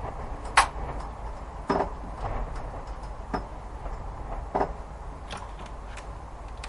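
Irregular knocks and clicks, about one every second, the sharpest about half a second in, over a low steady rumble in a layered spooky sound-effect ambience.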